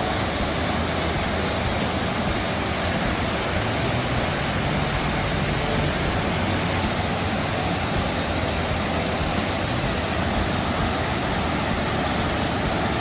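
Waterfall's rushing water: a steady, even roar.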